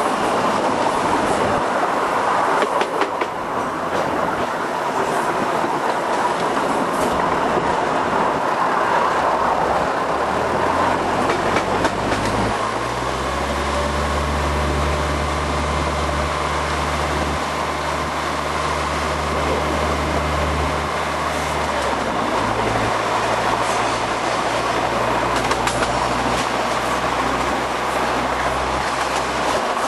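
Vintage tram running along the track: a steady rolling and rattling of wheels on rails. Partway through, a low hum comes in and steps up in pitch, then drops back about two-thirds of the way through.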